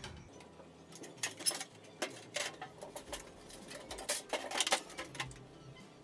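Light metallic knocks and clatter from a perforated metal cable tray being handled and turned over on a table, a few sharp knocks spread through, over faint background music.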